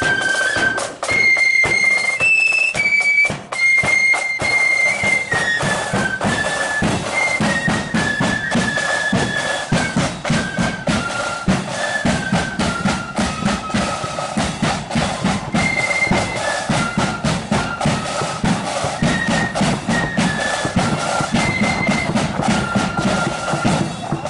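Marching flute band playing a tune: flutes carry a single melody line over rattling side-drum strokes. From about six seconds in, a regular heavy bass drum beat comes through strongly.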